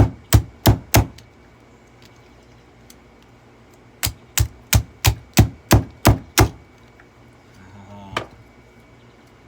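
Hard knocks in quick succession, about three a second, as items are smashed down into a Eureka The Boss bagged vacuum cleaner: four at the start, a run of eight about four seconds in, and a softer knock near the end.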